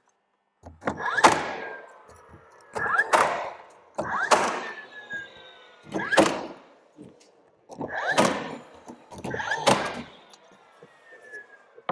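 Hammer blows on timber, most likely nailing a door stop to a door frame: about six heavy knocks, some doubled, one every second and a half to two seconds, each followed by a short ring.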